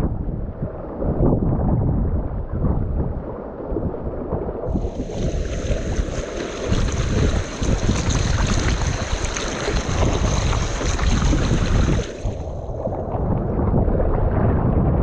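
Strong wind buffeting the microphone, a heavy rumble throughout. From about five seconds in to about twelve, a loud rushing hiss joins it and then fades away.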